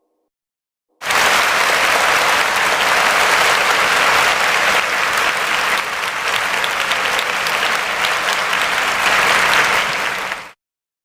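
Applause: a crowd of many hands clapping densely and evenly. It starts about a second in and cuts off abruptly near the end.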